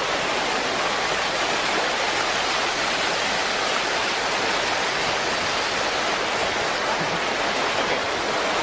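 Fast-moving flash-flood water rushing steadily, a continuous hiss-like wash of water with no breaks.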